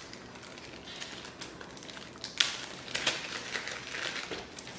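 Thin clear plastic packaging bag crinkling and rustling as it is pulled open by hand and a cable is taken out, with irregular sharp crackles, the sharpest about two and a half seconds in.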